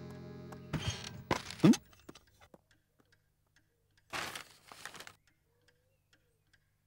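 Cartoon soundtrack: a closing music chord fades out, and a short voice-like sound from the wolf rises in pitch within the first two seconds. After a silence, a brief rustle of paper comes about four seconds in as an envelope is picked up from the floor.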